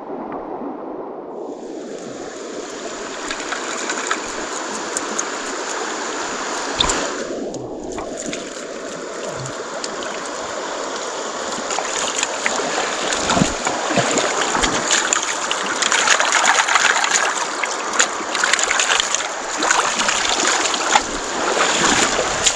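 Shallow river running steadily over stones, with splashing and small knocks from hands washing and cleaning fish in the water, busier in the second half.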